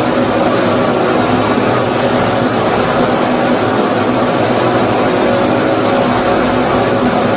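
Continuous white noise for lulling a baby to sleep: an even, unbroken rushing sound, fuller in the low-middle range, with no rhythm or breaks.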